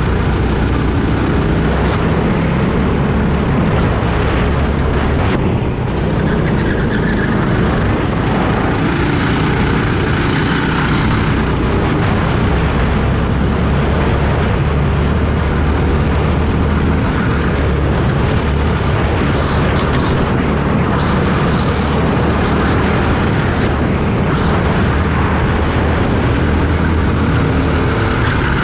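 Go-kart's small petrol engine running steadily at speed, heard from the driver's seat.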